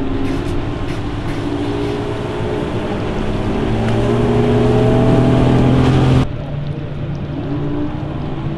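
Bass boats' outboard motors running at speed across the water, their engine pitch sliding up and down as boats pass. The sound builds and then drops off suddenly about six seconds in.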